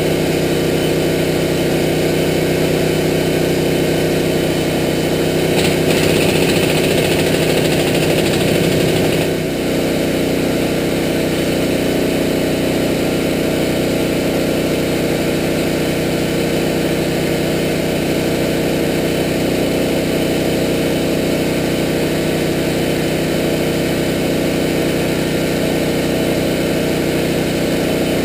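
An engine idling steadily, with an air impact wrench rattling for about four seconds a few seconds in, working on the axle's bolts.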